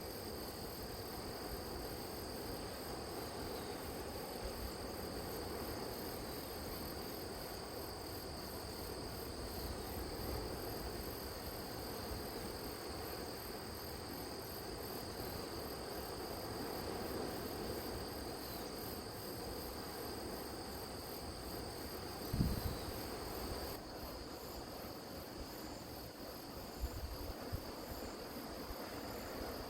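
Grass insects trilling steadily in high, fast-pulsing chirrs over a low rushing background. Part of the trill stops abruptly about three-quarters of the way through, and a single low thump comes just before that.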